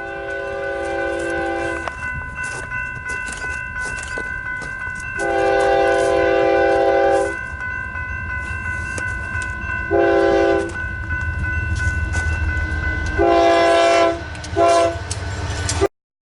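Union Pacific EMD SD70ACe No. 1983's multi-chime air horn blowing a long, long, short, long pattern, the grade-crossing warning, then one more short toot. Underneath, the locomotive rumbles and wheels click over the rails; the sound cuts off suddenly near the end.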